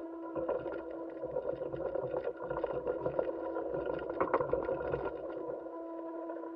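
A steady mechanical hum made of several steady tones, the strongest one low, with scattered clicks and crackles throughout. This is the background noise on NASA astronaut footage.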